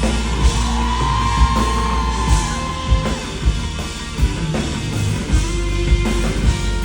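Live band music heard through the concert sound system: an instrumental passage of a pop-rock song with electric guitar over a steady kick-drum beat of about two beats a second. A held, gently bending lead line sounds in the first few seconds.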